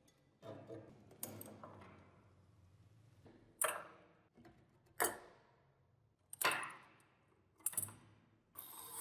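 Rusty metal blowtorch parts knocking and clinking as they are handled and set down on a wooden table: a string of short sharp knocks, roughly one every second or so, each ringing briefly. A scratchy rasping starts near the end.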